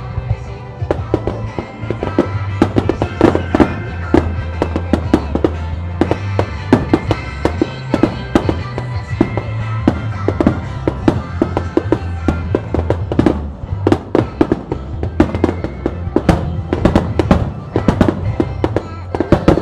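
Aerial firework shells by Wabiya bursting in a rapid, irregular string of sharp bangs, growing denser in the second half, over music with a steady bass line.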